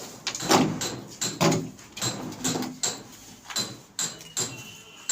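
A series of sharp knocks and scrapes from tools during bathroom plumbing work, irregular at about two a second, some with a faint metallic ring.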